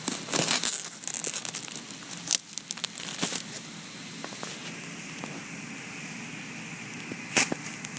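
Plastic sheet crinkling and rustling as a very sharp knife slices through it one-handed, in a flurry of crackly bursts over the first three seconds or so. It then settles to a faint steady hiss, with a couple of sharp clicks near the end.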